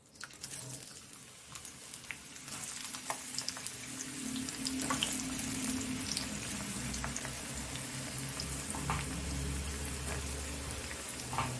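Sliced onions frying in hot oil in a kadai: a sizzle that starts as the onions go in by hand and builds over the first few seconds, then holds steady with scattered crackles.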